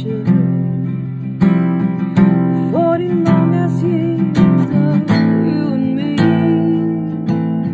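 A woman singing slowly over a strummed acoustic guitar, with chords struck about once a second.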